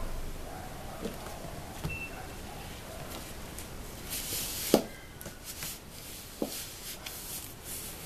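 Hands pressing and smoothing a sheet of EVA foam onto glued cardboard milk cartons. Soft rubbing and rustling with a few light knocks, the sharpest a little under five seconds in.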